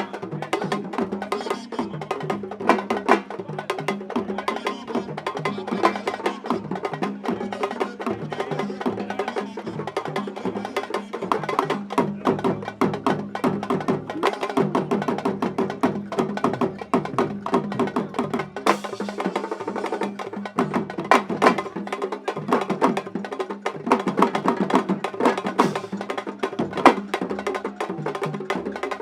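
Fast, dense drumming with sharp, woody strikes in a quick, driving rhythm.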